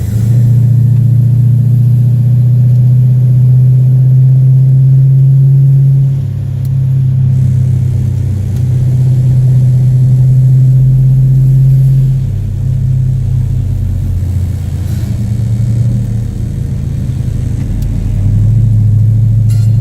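A vehicle engine running steadily under throttle, with a deep drone. It eases off briefly about six seconds and twelve seconds in, then picks back up, with a lower stretch before it pulls again near the end.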